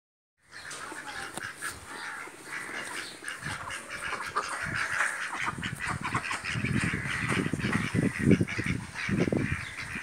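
Small flock of domestic ducks quacking, many calls overlapping. Low thuds and rumble join in over the second half.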